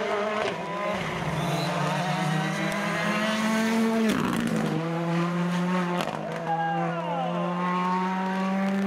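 Rally car engine running hard at high revs, its note holding steady and dropping briefly about four seconds in. There are sharp cracks about four and six seconds in, and a falling pitch later as a car passes.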